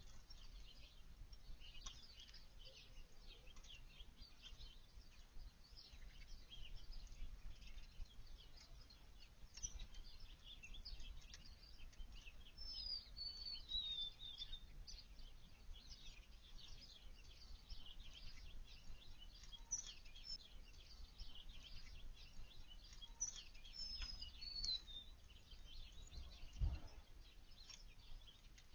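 Faint chirping and twittering of small backyard songbirds, with two longer notes that slide downward in pitch, one near the middle and one a few seconds later. A soft low thump comes near the end.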